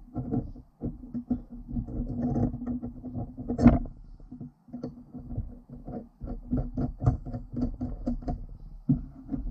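Workshop metalwork noise: a power tool such as a drill runs in short bursts with a steady hum, among rattles and clanks of steel parts being handled, with one sharper metallic knock early on.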